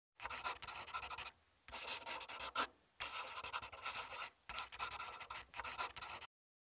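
Rapid scratchy clicking sound effect, heard in four runs with short pauses between them, as text is typed out on screen.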